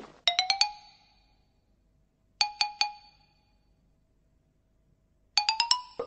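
A small bell rung in three quick bursts of several rapid strikes each, about two and a half seconds apart, each strike ringing on briefly.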